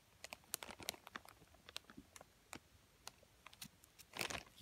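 Faint, scattered soft clicks and crinkles from a gloved hand handling the fabric on the underside of a mattress, with a longer rustle about four seconds in.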